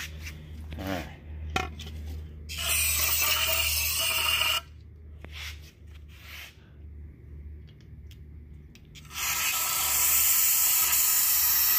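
Aerosol solvent cleaner sprayed through a straw into the oil galleries of an L134 engine block, flushing out dirt: two long hissing blasts of about two seconds each, the second starting about nine seconds in. A steady low hum and a few light knocks lie underneath.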